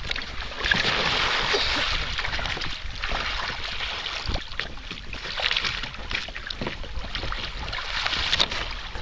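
Water splashing and sloshing as a person in neoprene waders drops off a kayak into the water and then hauls himself back up onto it, with louder splashes near the start and again near the end.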